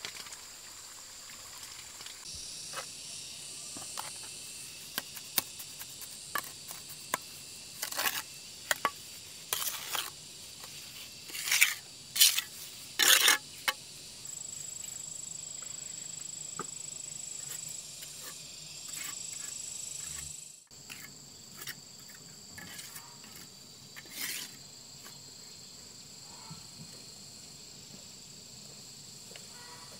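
Insects chirping steadily in high tones, with a few short, louder noises a third of the way in and one more later.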